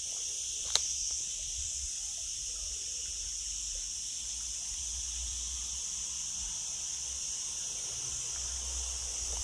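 Steady, high-pitched chorus of insects droning without a break, with a single sharp click about a second in.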